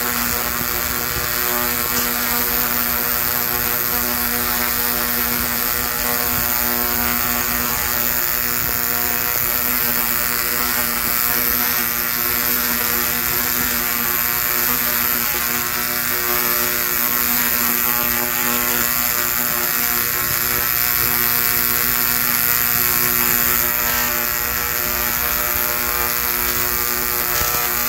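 Large Tesla coil firing continuously, its spark discharges making a loud, steady electric buzz with a constant pitch and a crackling hiss from the arcs.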